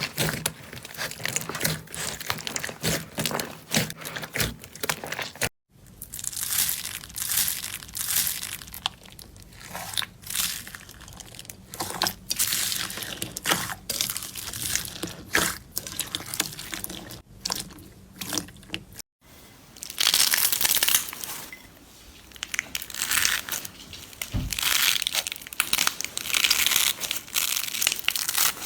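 Slime being squeezed, poked and stretched by hand, making a dense crackling, crinkling sound full of small clicks and pops. It breaks off to silence twice, briefly, about six and about nineteen seconds in.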